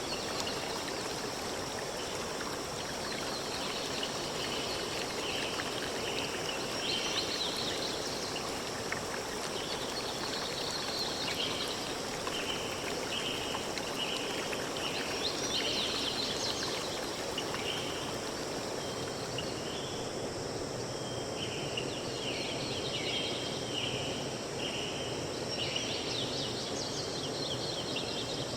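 Forest soundscape: a steady hiss with birds calling over it, in runs of short repeated notes and clusters of quick chirps every few seconds, and a steady high insect buzz.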